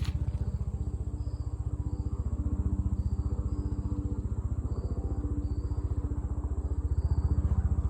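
An engine idling steadily with an even, fast pulse.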